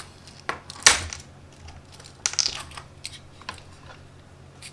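A run of sharp clicks and taps as soldering tools are handled on a workbench. The loudest comes about a second in, and a quick cluster follows a little past two seconds.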